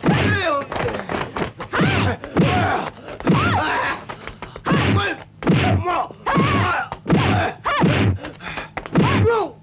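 Dubbed kung fu fight sound: a rapid exchange of punch and block impact effects, each paired with a short shouted yell from the fighters, about one a second.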